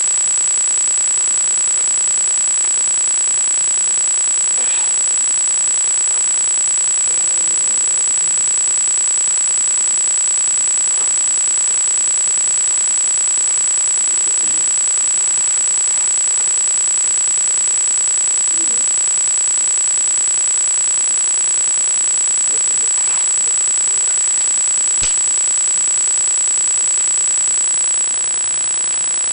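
A steady high-pitched electronic whine with hiss under it, an electrical noise in the recording. Faint rustles and knocks come from a tripod's fabric carry bag being handled, a few times.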